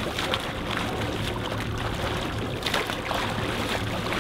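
Water splashing irregularly as a swimmer's arms strike the sea in front crawl, over the steady low drone of a boat engine running.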